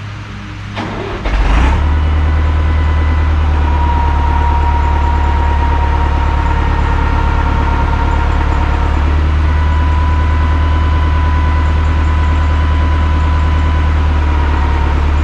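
A large engine comes up to a loud, steady run after a knock about a second and a half in, then holds a constant speed with a faint steady whine over the drone.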